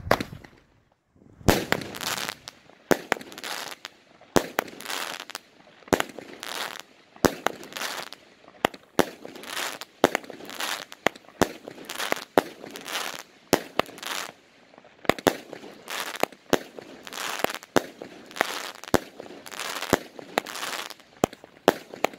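A 200-gram, 20-shot Poppin' Bubbly consumer firework cake firing its shots one after another, starting about a second and a half in. The shots come roughly one a second, each a sharp report trailed by a crackle.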